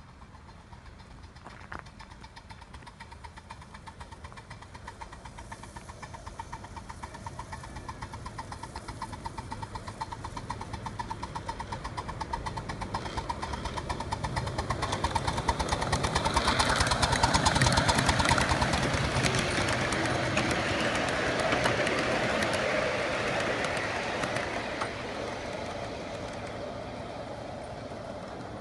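Ride-on miniature Pacific (4-6-2) steam locomotive running past with a rapid, even beat. It grows louder as it nears, is loudest about 17 seconds in, then fades as it moves away.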